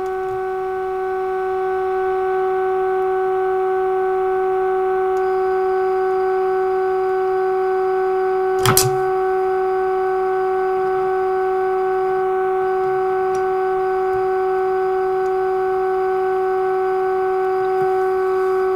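Steady test tone of about 400 Hz from the Healing 503E valve radio's speaker: the signal generator's modulated 600 kHz signal, received while the set's padder is adjusted to align the low end of the dial. The tone grows a little louder over the first two seconds as it is peaked, and there is a single click about nine seconds in.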